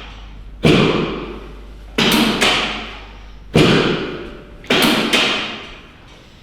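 Chiropractic drop table's drop piece giving way under thrusts: about six loud clunks, some in quick pairs, each with a short rattling decay. A drop-assisted adjustment of a rotated pelvis.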